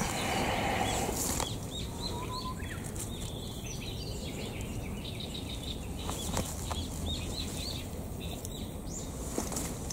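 Rustling of grass, bamboo leaves and leaf litter as someone walks through dense undergrowth, loudest in the first second or so, with a few more brushes of leaves later. Small birds chirp repeatedly in the background.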